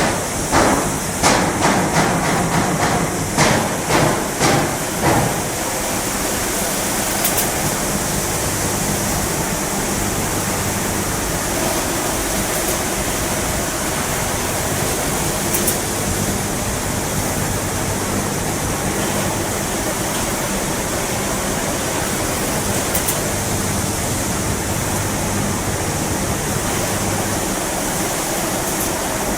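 Semi-automatic bag packing machine running: a quick series of sharp mechanical knocks and clatter for the first five seconds, then a steady rushing noise over a low mechanical hum.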